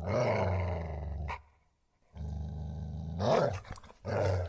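An animal growling low in three drawn-out stretches, with short pauses between them.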